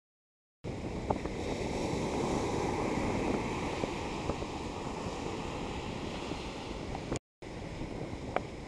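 Ocean surf breaking and washing up the sand, a steady rushing noise mixed with wind buffeting the microphone. The sound cuts out completely at the start and again briefly near the end.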